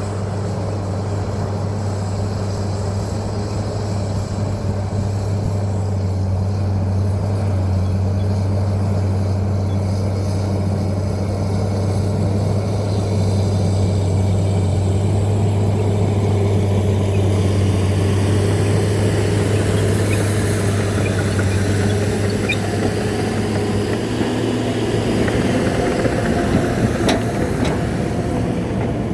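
John Deere 750J crawler dozer's diesel engine running steadily under work, its pitch stepping up a little near the end.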